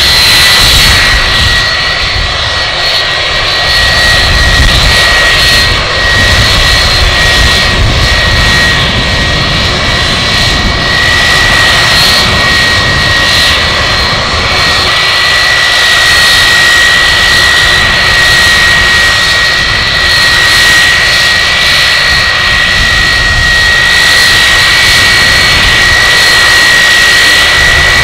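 Boeing 757-200's twin Rolls-Royce RB211 turbofans at taxi thrust close by: a steady high fan whine over a broad rumble and hiss, the whine growing a little stronger about halfway through.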